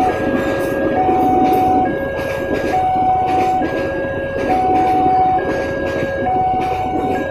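Level-crossing warning siren sounding a steady two-tone hi-lo wail, switching pitch about once a second. Underneath it a passenger train rumbles across the crossing, its wheels clattering over the rails in a regular beat about twice a second.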